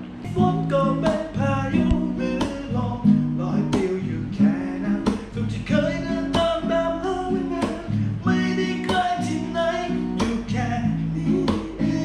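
Acoustic guitar strummed in a steady rhythm, one chord after another.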